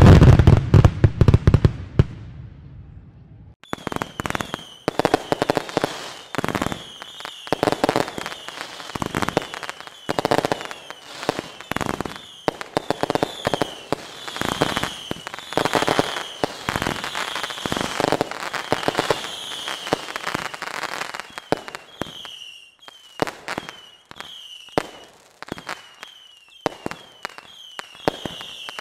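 Fireworks going off: a loud boom at the start fades away over about two seconds. After a short lull comes a rapid run of sharp cracks and pops mixed with short, falling, high-pitched whistles, thinning out in the last few seconds.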